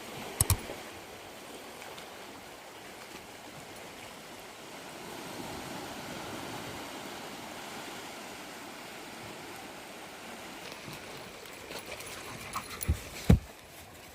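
Sea waves washing on a beach, a steady rushing surf. A couple of sharp thumps come about half a second in and several more near the end.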